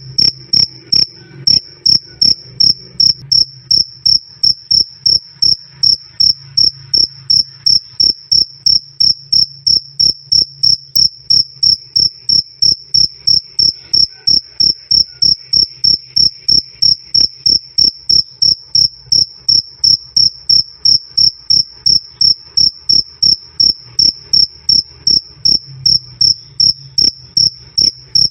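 Cricket chirping loud and clear: a steady, even train of short, high chirps, about two and a half a second, with a faint low hum beneath.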